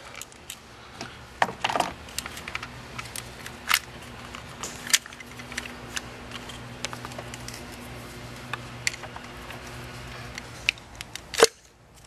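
Scattered sharp plastic clicks and knocks as an ignition coil's connector is unplugged and the coil is handled and gripped with insulated coil-removal pliers on a BMW S54 engine's valve cover. A steady low hum runs underneath and stops about ten and a half seconds in.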